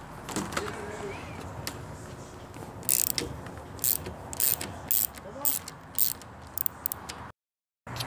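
Ratchet wrench turning the bolt of an LED light bar's mounting bracket. From about three seconds in it makes a run of about ten sharp ratcheting strokes, roughly two a second. The sound drops out briefly near the end.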